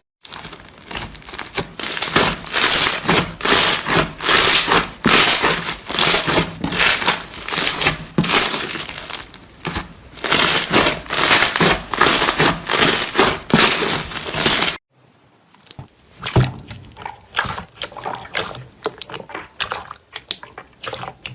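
Slime being squeezed and pressed by hand, making loud, noisy squishing in repeated strokes; about fifteen seconds in it cuts to a quieter, more uneven squishing of another slime.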